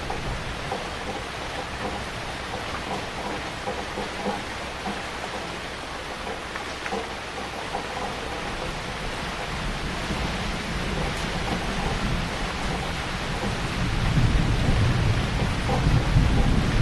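Heavy rain falling steadily. About ten seconds in, a low rumble begins to build underneath it, and it grows loud over the last few seconds.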